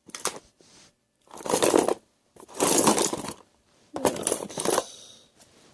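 Buttons clattering and rattling against each other and their container as they are handled, in several bursts of clicking, about half a second to a second each.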